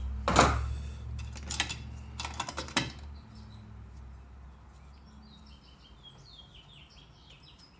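Metal tools and parts clattering and knocking on a workbench for the first three seconds, then small birds chirping faintly, many short calls in quick succession.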